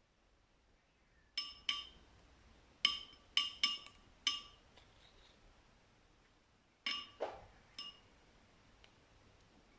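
Sharp clinks of a hard object being struck, each ringing briefly at the same pitch: about ten strikes in three groups, two, then four, then four.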